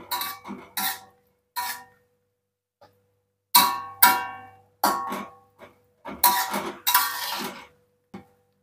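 Spatula scraping and knocking against a metal wok while stir-frying vegetables in a little liquid, in irregular strokes that each ring briefly, coming thicker in the second half.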